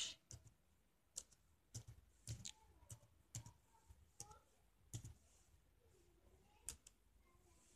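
Faint keystrokes on a computer keyboard: single key presses spaced unevenly, roughly one every half second to a second, as a word is typed slowly one letter at a time.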